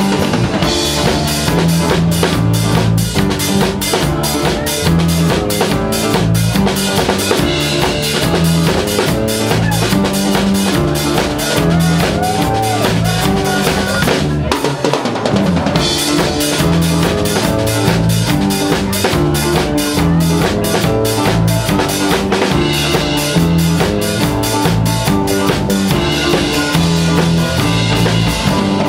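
Live band playing an instrumental passage: a drum kit with bass drum, snare and cymbals keeps a steady driving beat under an electric bass guitar. The bass and kick drum drop out briefly about halfway through, then come back in.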